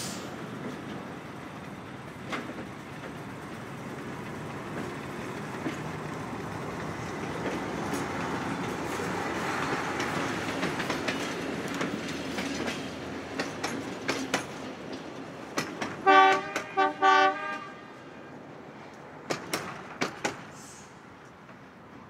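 Vintage South Australian Railways Brill railcar with a single carriage passing: the rumble of its running gear grows louder, then fades as it moves away, with clicks of wheels over rail joints. About sixteen seconds in it sounds three short horn blasts, and a few sharp clicks follow as it recedes.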